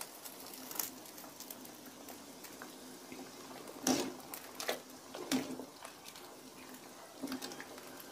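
Vegetable soup simmering in a large aluminium wok, with a metal ladle stirring it and knocking against the pan a few times, most clearly from about four seconds in.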